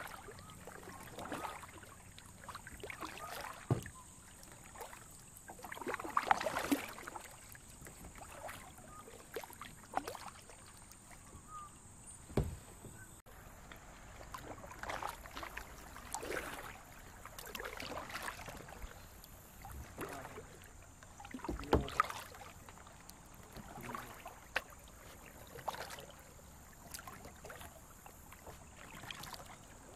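Kayak paddle strokes splashing in creek water, one every second or two, with a few sharper knocks between them.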